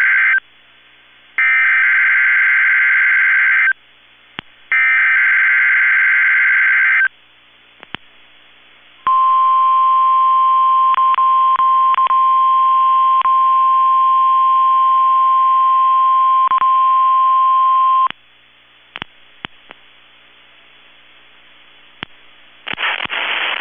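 NOAA Weather Radio Emergency Alert System test: three bursts of SAME digital header data tones, the first already underway, each lasting about two seconds. About two seconds later the 1050 Hz warning alarm tone sounds as one steady tone for about nine seconds and cuts off suddenly. The sound is heard through a small phone recording and lacks treble.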